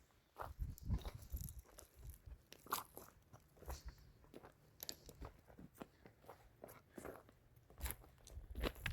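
Irregular crunching, a scattered series of sharp crunches and scrapes with soft low thumps.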